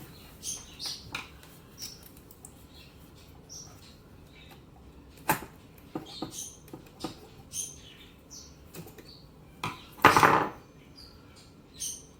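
Small clicks and a louder clatter about ten seconds in, from leads being fastened to an old telephone's terminals. Short high bird chirps recur throughout.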